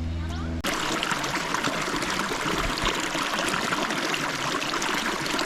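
Steady rush of running creek water over rocks, starting abruptly about half a second in, where a low steady hum breaks off.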